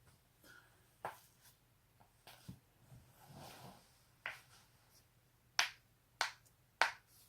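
Neck and back joints being cracked: a string of sharp pops, the three loudest coming about half a second apart near the end.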